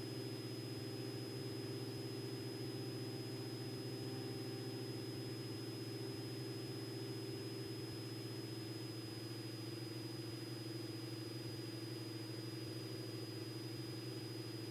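Cessna 206 Stationair's piston engine and propeller droning steadily at climb power just after takeoff, heard faintly, with a thin, steady high tone over it.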